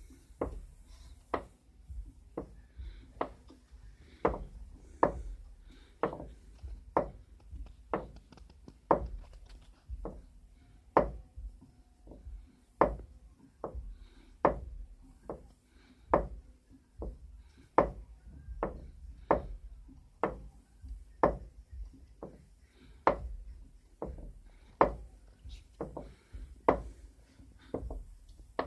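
Daewoo Lanos front strut mount (upper strut bearing) knocking as the steering is turned: sharp knocks about once a second, over a low rumble. The knock is the sign of a worn strut-mount bearing.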